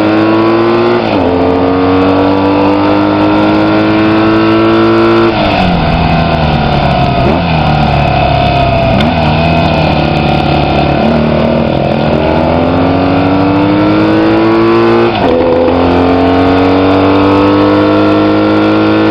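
Vintage racing motorcycle engine heard from on board, pulling through the gears: its pitch climbs and drops back at an upshift about a second in. About five seconds in it falls away and runs lower and uneven for several seconds as the bike slows for a bend, then climbs again, with another gear change about fifteen seconds in.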